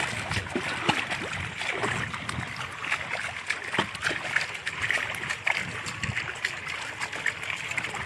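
Bare feet splashing through ankle-deep water, a quick, irregular run of splashes and sloshes from people walking fast.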